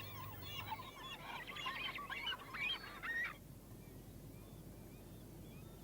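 A chorus of gulls calling at a nesting colony: many short, overlapping cries that thin out about three seconds in to a few faint, distant calls.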